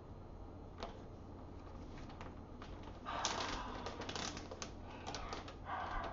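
Clear plastic bag of helium crinkling and rustling as it is handled, with scattered light clicks. Near the end the bag is raised to the mouth and a breath is drawn from it.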